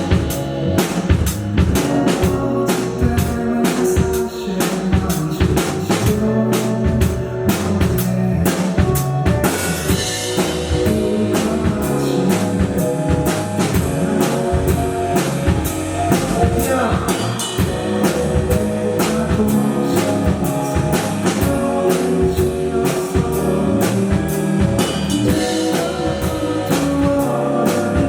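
A live rock band playing an instrumental passage: a drum kit keeps a steady beat, with kick and snare hits, under a bass line and sustained chords.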